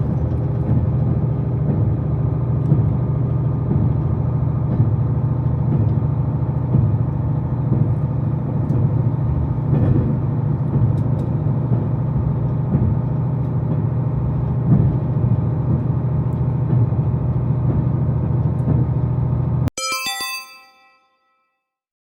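A JR Hokkaido KiHa 261 series 1000 diesel limited express running at speed, heard on board as a steady deep rumble of engine and wheels. Near the end the rumble cuts off and an onboard chime rings and fades, the signal before the arrival announcement for the next station.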